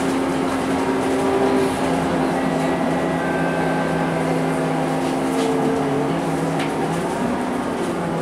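Scania K230UB city bus heard from inside the saloon while under way: its 9-litre five-cylinder diesel drones at a steady pitch over road and tyre noise, and the pitch shifts near the end.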